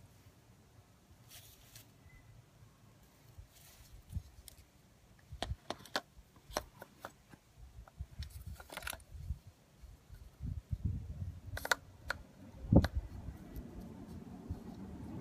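Scattered clicks, taps and soft knocks of objects being handled, sparse at first and growing busier, with one louder knock near the end.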